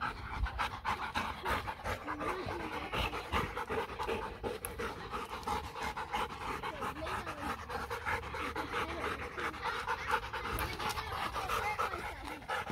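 German shepherd-type dogs panting quickly and steadily close up, winded from running.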